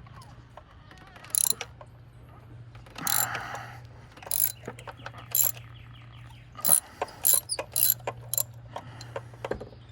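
Socket ratchet working a spark plug on a 2008 Dodge Caliber's engine: irregular metallic clicks and clanks, with a short run of ratchet clicking in the middle, over a steady low hum.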